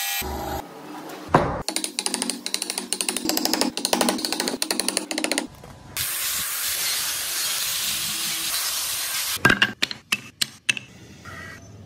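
Woodworking power tools in quick succession: a band saw humming at the start, a fast even rhythm of sharp scraping strokes for about four seconds, then an angle grinder fitted with a sanding pad sanding a wooden block as a steady high hiss for about three and a half seconds. Several sharp knocks of wooden pieces being handled come near the end.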